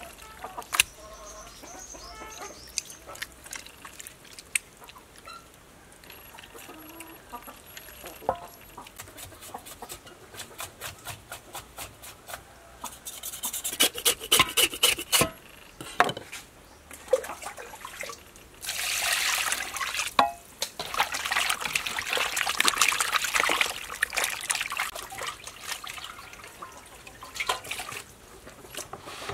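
Wet squelching and sloshing as raw pork intestines are kneaded, squeezed and rinsed by hand in a metal basin, with a louder stretch of splashing water about two-thirds of the way through.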